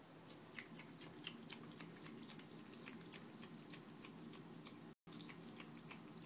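Baby opossum chewing a cricket: faint, irregular crisp clicks and crunches, several a second.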